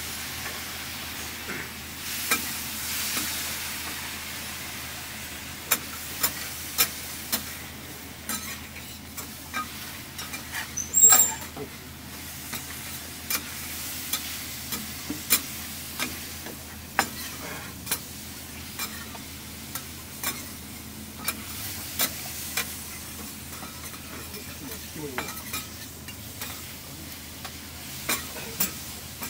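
Horumon (beef offal) sizzling as it cooks, a steady frying hiss broken by frequent sharp clicks and taps of metal utensils. There is one louder metallic clang with a brief ringing tone about eleven seconds in.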